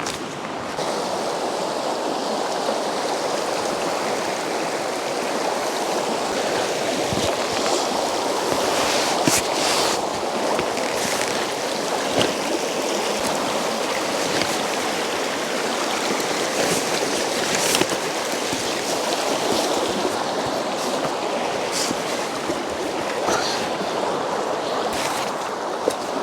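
A mountain river rushing steadily, with a few brief clicks standing out above the flow.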